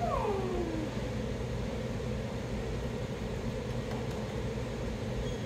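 Steady low hum and hiss of room background noise, with one short high sound sliding down in pitch during the first second.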